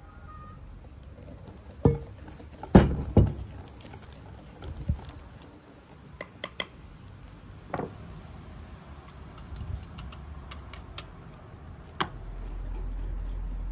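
Small wire whisk beating batter in a glass bowl, its wires ticking and clinking against the glass, with several sharper knocks and taps of the bowl and jug on the wooden table.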